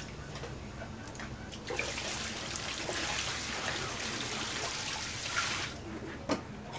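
Water running from a tap into a plastic basin, starting about two seconds in and stopping near the end, followed by a couple of light knocks of the basin.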